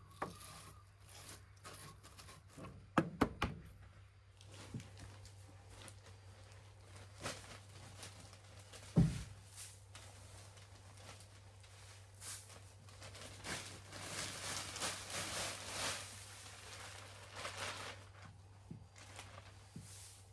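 Sweeping with a stiff snow brush at a chicken coop door: a few sharp knocks about three seconds in, one heavy thump about nine seconds in, and a long stretch of brushing and rustling in the second half.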